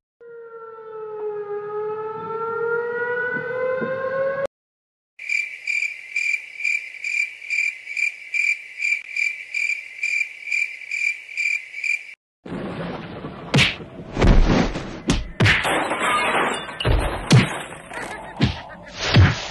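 A run of comic sound effects played one after another. First comes a tone with overtones that dips and then slowly glides upward for about four seconds. Then a high chirping beep repeats about three times a second for some seven seconds, and then comes a rapid flurry of punch-like hits and thuds.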